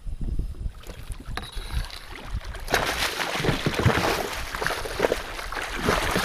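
Low wind rumble on the microphone, then from about three seconds in a hooked musky thrashing and splashing at the surface beside the boat as it is scooped into a landing net.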